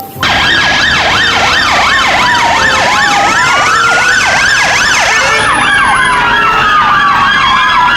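Police-style electronic sirens: a fast yelp sweeping up and down about three times a second, layered over a slower wail that falls, rises and falls again. It starts and cuts off abruptly.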